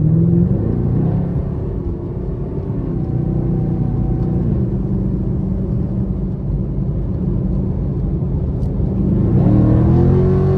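Chevrolet Camaro SS 6.2-litre V8 running under way at a fairly steady pitch, then revving up about nine seconds in.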